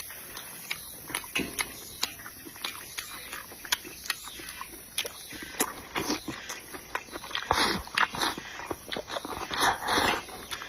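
Close-miked eating sounds: chewing and lip smacking, with many sharp wet clicks. There are two louder, longer noisy stretches, about seven and a half seconds in and again near the end.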